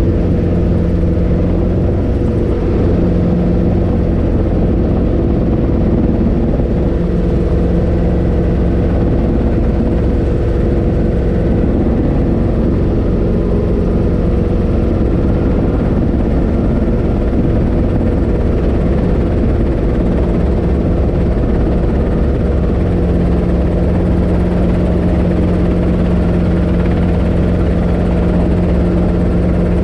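Robinson R22 helicopter heard from inside the cockpit: the steady drone of its four-cylinder piston engine and rotor in flight, with a low hum that grows stronger about two-thirds of the way through.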